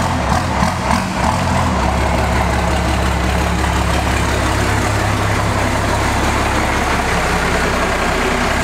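First-generation Dodge Ram's 5.9 L 12-valve Cummins diesel running at low speed as the truck backs in slowly, a loud low rumble that wavers a little at first and then settles to a steady run.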